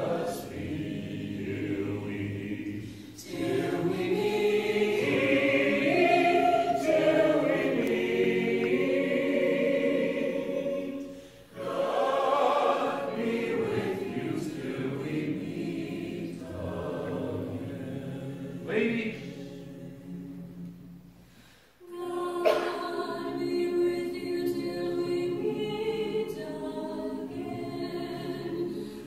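A choir singing in sustained phrases, with short breaks about three, eleven and a half and twenty-two seconds in.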